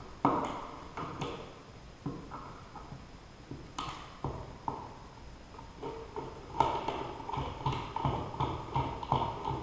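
Flat-blade screwdriver working the slotted screws of an old wall switch and cover plate: a few separate sharp clicks, then from about six and a half seconds in a quicker run of light metal clicks and scrapes.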